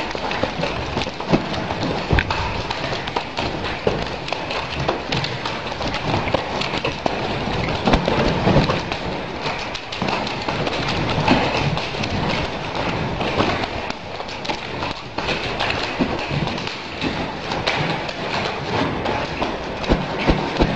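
Two nunchaku being swung, with frequent knocks of the sticks and dull thumps throughout, over a steady rushing hiss.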